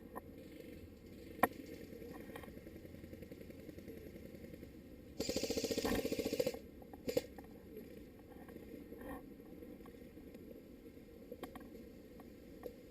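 An airsoft electric gun firing one full-auto burst of rapid shots, lasting about a second and a half, a little past five seconds in. A few single sharp snaps come before and after it.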